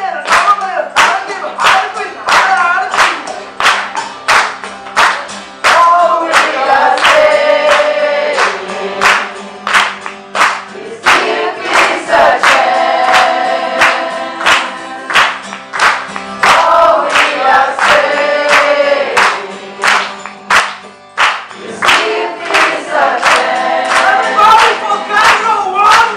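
A group singing along to an acoustic guitar, with steady hand clapping about two claps a second. Sung phrases come in stretches of a few seconds, with only the clapping beat in the short gaps between them.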